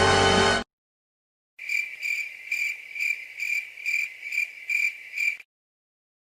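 Crickets-chirping sound effect: a clean, high, steady chirp repeated about twice a second for about four seconds, then cut off abruptly. It is the stock 'crickets' gag that marks an awkward silence.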